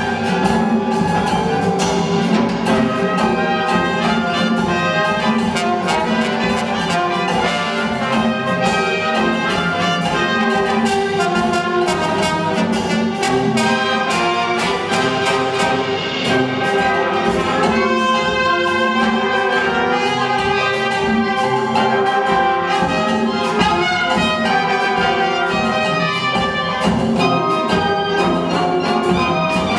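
A salsa tune played live by a brass band of saxophones, trumpets, trombones and tuba, with percussion keeping a steady beat.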